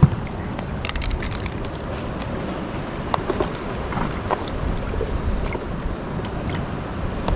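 Steady low rumble of wind buffeting the microphone, with scattered small clicks and rustles from hands handling the fishing line and lure.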